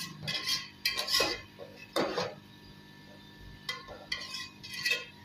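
Spoon stirring boiled rice through sugar syrup in a steel pot, scraping against the metal in about seven short, uneven strokes.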